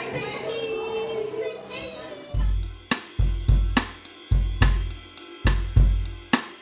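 Music: a pop song's drum intro, with kick drum thumps and hi-hat and snare hits in a steady groove. It starts about two seconds in.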